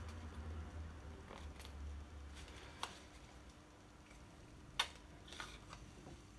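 Faint, scattered small clicks and taps of a plastic makeup pen applicator being handled and clicked. The sharpest click comes about three-quarters of the way in, after a low rumble of handling noise in the first couple of seconds.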